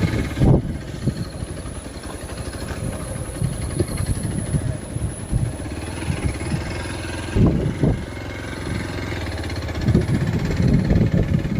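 Vehicle engine running low and steady on a rough off-road track, with heavy thumps as the vehicle jolts over bumps about half a second in, twice around seven and a half seconds, and again near the end.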